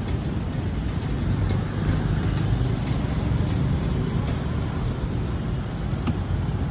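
Steady low rumble of outdoor background noise, with a few faint clicks of metal tongs turning pork skewers on a charcoal grill.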